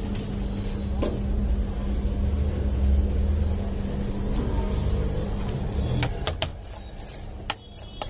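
Street ambience: a low traffic rumble with a steady hum. About six seconds in the rumble drops away and a few sharp clicks or taps follow.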